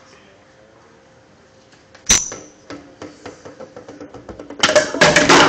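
A bowling ball lands with a sharp thud on a wood floor about two seconds in, then rolls in with a ticking rumble that grows louder, and near the end crashes into bowling pins, which clatter as they fall.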